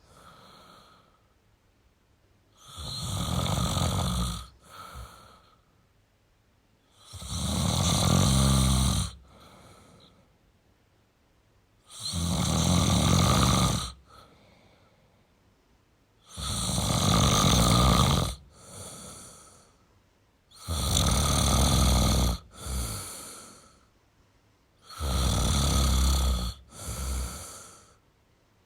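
A man snoring in a slow, regular rhythm: a loud snore about every four to five seconds, each lasting about two seconds and most followed by a shorter, quieter breath.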